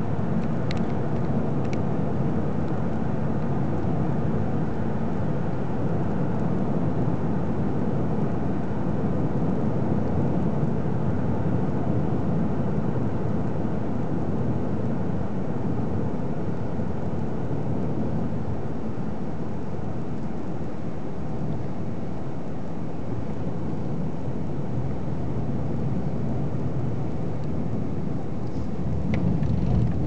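Car driving at road speed, heard from inside the cabin: a steady low drone of road and engine noise.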